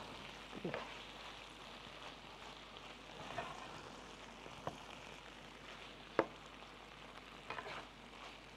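Meat and vegetables sizzling in a nonstick frying pan as they are stirred with a slotted spoon, with a few sharp clinks of the spoon against the pan.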